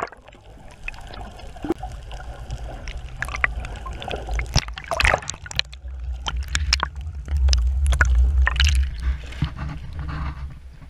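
Sea water sloshing and gurgling around a camera held under water, heard muffled: a deep steady rumble that swells a little past the middle, with scattered sharp crackles and splashes.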